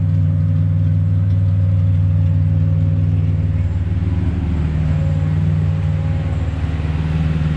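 Straight-piped engine of a Ford AU Falcon idling with a steady, deep note, easing off slightly about four seconds in.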